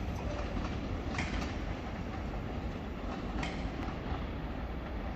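A train running through the station: a steady rumble with sharp wheel clacks over rail joints about every two seconds.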